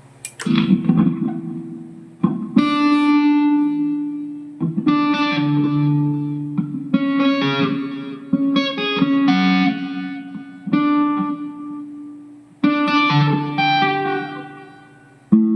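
Electric guitar played through a Mooer GE150 Pro Li multi-effects processor: chords and short picked phrases struck about every two seconds, each ringing out and fading before the next.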